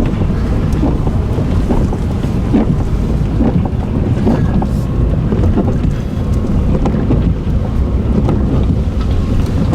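Large hailstones striking hard and fast, a dense clatter of impacts under loud, gusty wind rumbling on the microphone.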